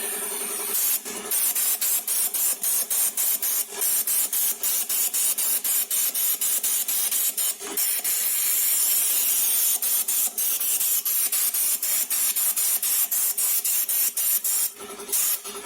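A loud hiss, strongest in the high range, broken by short dropouts about three times a second.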